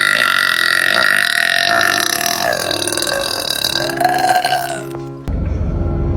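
A person's long, drawn-out burp, the gas of a chugged sparkling water coming up, lasting about five seconds. Near the end it cuts off suddenly and a steady low rumble takes over.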